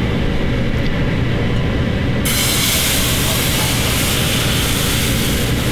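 Crepe batter sizzling in a hot frying pan, an even hiss that starts suddenly about two seconds in, over a steady low hum.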